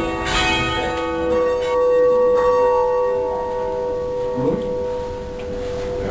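Church bells being rung by rope: a few strikes in the first two or three seconds, then the bells' tones hang on and slowly die away.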